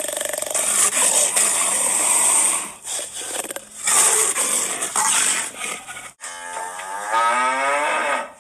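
Animal calls: harsh, noisy calls through the first half, then a pitched call lasting about two seconds near the end, its pitch sliding up and down.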